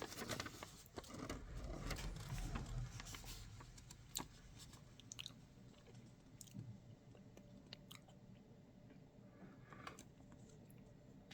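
Faint handling noises: soft rustling, louder in the first few seconds, then scattered light clicks as objects are handled.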